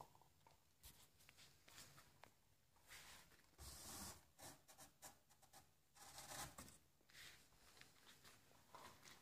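Near silence: quiet room tone with a few faint, scattered rustles and soft brushing sounds.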